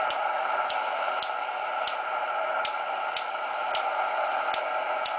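Cobra 200GTL-DX CB radio receiving an empty channel: steady hiss of band static from its speaker, with sharp ticks about every half second over it.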